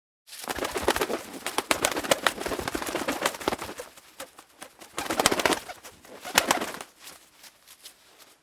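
Birds: a dense run of rapid clicks and flutters with calls, loudest in the first few seconds and again about five and six seconds in, fading out near the end.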